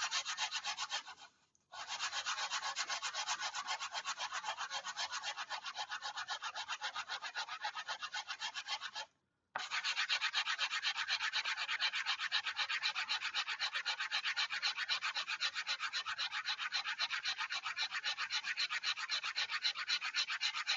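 Sandpaper rubbing quickly back and forth over a block of compressed sawdust, in fast, even scratchy strokes. It stops briefly twice, about a second in and about nine seconds in, then carries on.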